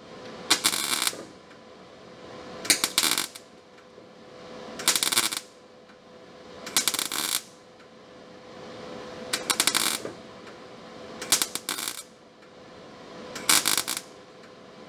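Welder laying a row of short spot welds, each a crackling burst of about half a second, seven in all, roughly every two seconds, over a steady hum.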